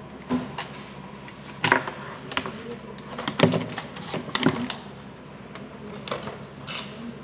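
A handful of sharp clicks and light knocks at irregular intervals over a faint steady hum. The loudest come about a second and a half and three and a half seconds in.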